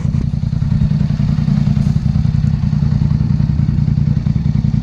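Polaris Sportsman Highlifter 850 ATV's parallel-twin engine running steadily through a Big Gun aftermarket exhaust, its pitch holding even. It is running well on the Big Gun Power Box's recommended tune.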